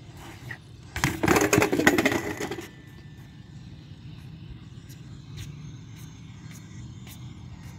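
A BMX bike hitting concrete, with a loud metallic clatter and rattle of many quick impacts lasting about a second and a half, starting about a second in.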